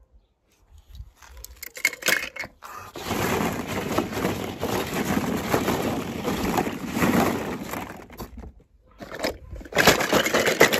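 Loose pebbles crunching and rattling in a long, dense stretch of small clicks and scrapes, breaking off briefly about eight seconds in and starting again about a second later.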